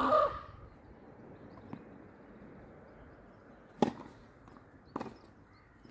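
Tennis rackets striking the ball during a doubles rally: two sharp pops a little over a second apart, about four and five seconds in, with a fainter tick before them.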